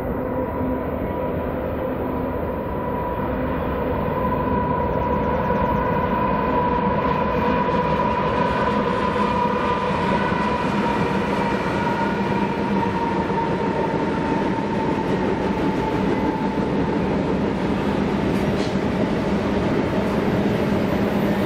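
A BNSF double-stack freight train's diesel locomotives approach and pass, getting louder over the first few seconds, with steady engine tones over the rumble. In the last seconds the container cars roll by with steady wheel-on-rail noise.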